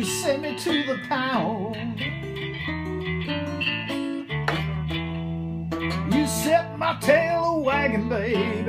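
Acoustic guitar played solo, a melody of bent, wavering notes over steady low bass notes.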